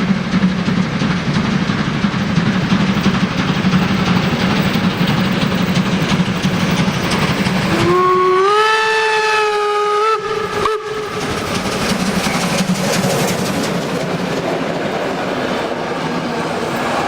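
Steam train hauled by the class 52 steam locomotive 52 1360, running with a steady rumble and rail clatter. About eight seconds in, the locomotive's steam whistle sounds once for a little over two seconds, rising slightly in pitch as it opens, then cuts off while the train keeps running.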